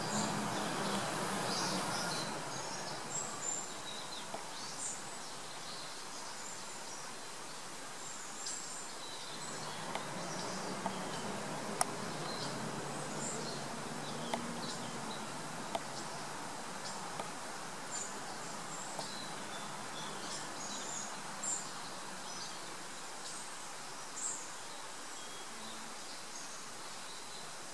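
European hornets buzzing at their nest in a tree hollow, the low hum of their wings coming and going as they fly in and out. Short high bird chirps sound throughout over a steady outdoor hiss.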